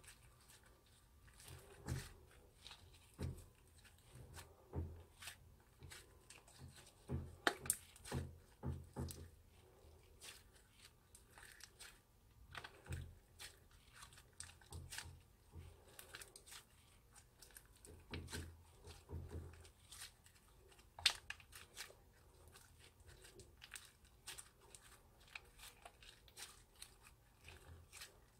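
Hands kneading and squeezing clear slime: irregular sticky clicks, pops and squelches as it folds and pulls apart, with a sharper crackle about seven seconds in and again around twenty-one seconds.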